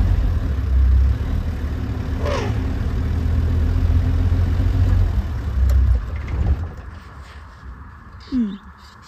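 Vehicle engine idling with a steady low hum, which cuts off about six and a half seconds in. A brief falling call sounds near the start, and a lower falling call near the end.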